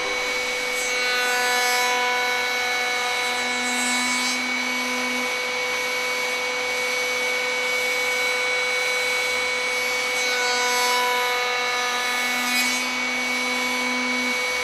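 Router in a router table running steadily with a high whine while a Freud drawer-joint bit cuts a board fed flat across the table. The cutting noise of the wood swells twice, about a second in and again about ten seconds in.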